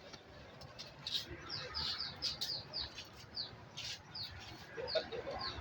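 Small birds chirping: many short, falling chirps, several a second, with a few brief sharp clicks among them.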